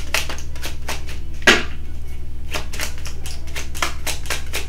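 Tarot deck being shuffled hand over hand: quick, irregular clicks of cards slapping together as packets drop, several a second, with one sharper slap about a second and a half in. A steady low hum runs underneath.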